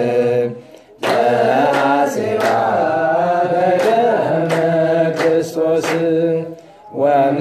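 Voices chanting a Ge'ez Easter hymn together in the slow, drawn-out Ethiopian Orthodox style, with a short break for breath about a second in and another near the end.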